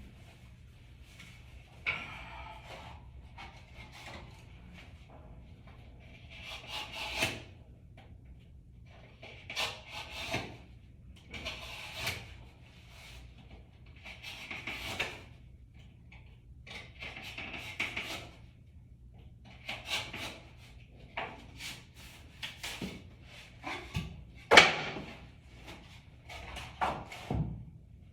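Particleboard slats being slid, rubbed and pressed together by hand: a series of short scraping rubs every couple of seconds, with a few sharp wooden knocks near the end.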